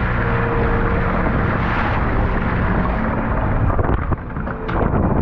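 Crab boat's engine running under way, with water rushing and splashing along the hull. About four seconds in the noise dips briefly and a few sharp knocks come through.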